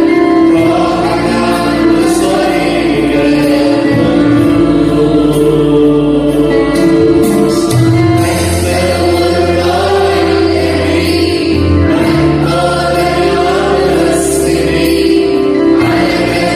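Arabic Christian hymn sung by a choir over instrumental backing with steady bass notes that shift every few seconds.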